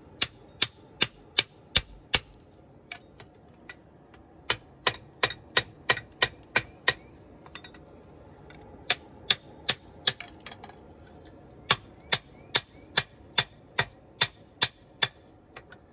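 Hand hammer striking a steel drift set in the eye of a hot wrapped-eye axe head on a swage block, drifting the eye to its final shape. Sharp metal blows at about two to three a second, in runs of four to eight with short pauses between.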